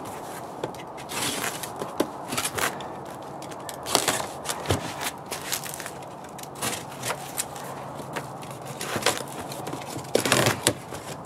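Box cutter slitting packing tape on a cardboard shipping box: irregular scrapes and clicks of the blade and of hands on the cardboard. Just after ten seconds comes a louder cluster as the tape is pulled and peeled from a corner.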